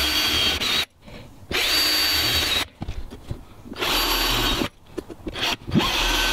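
Cordless drill running in four short runs of about a second each, driving black drywall screws through the aluminium curtain track into the van's metal window frame. The motor makes a steady whine, with quiet gaps between runs as the drill is moved along the rail.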